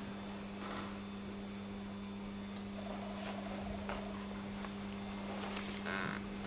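Steady low hum with a thin high whine above it, the constant background noise of a large hall, with a few faint soft rustles of cloth as a kneeling swordsman shifts his hands and hakama.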